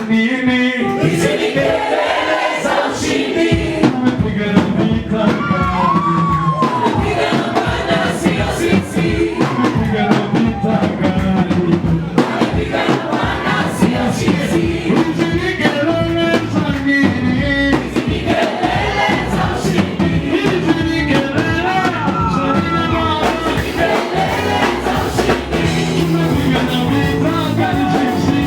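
Gospel music: voices singing over instruments with a beat.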